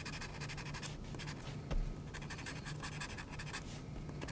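Soft graphite pencil scratching on paper in rapid short shading strokes, filling in shadow, with one soft thump about two seconds in.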